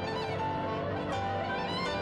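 Background music led by bowed strings, held notes and a gentle melody.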